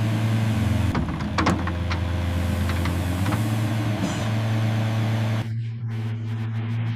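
Excavator engine running steadily with a low hum, with a few sharp clanks between one and two seconds in.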